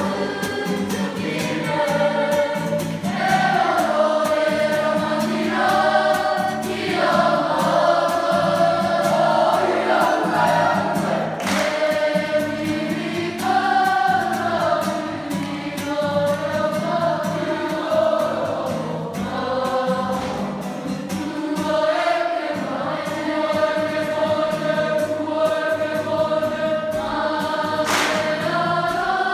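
School kapa haka group of children singing a Māori waiata together in unison, with long held and gliding notes.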